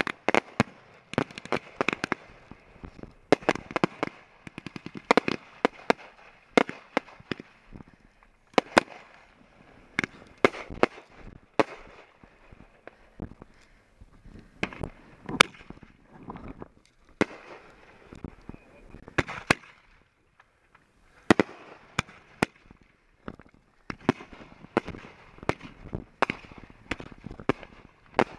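Fireworks going off: a rapid, irregular string of sharp bangs and crackles, easing briefly about 13 and 20 seconds in.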